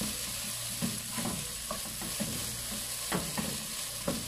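Chopped okra frying in coconut oil in a nonstick pan, with a steady soft sizzle and several short scraping strokes of a spatula stirring it.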